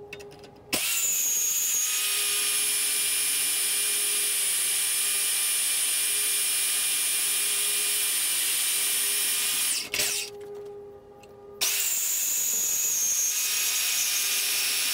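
Bauer 10-amp portable bandsaw running and cutting through steel angle iron with a fine-tooth blade, a steady motor and blade whine, played back at four times speed. The saw stops about ten seconds in and starts again a second and a half later.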